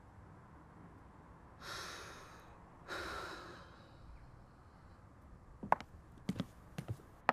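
A woman breathes in and lets out a heavy sigh. A few seconds later come hard-soled footsteps on a wooden floor, about two steps a second.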